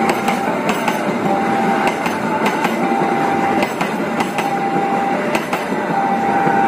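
Railway level-crossing alarm sounding a steady beep that repeats about every second and a half, over the noise of a passing train with clacking wheels.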